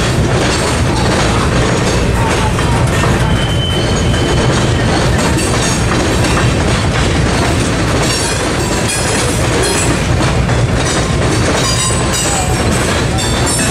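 Freight cars of a mixed freight train, boxcars, a hopper and tank cars, rolling steadily past: a continuous rumble and clatter of wheels over the rails, with a few brief high wheel squeals.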